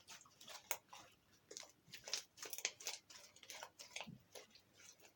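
Dyed slime being kneaded by hand, giving off irregular small sticky clicks and pops, several a second.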